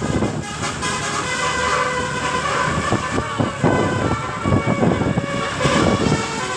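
Telolet basuri multi-tone air horn on a bus playing a tune of held notes that step up and down in pitch, over rumbling vehicle noise.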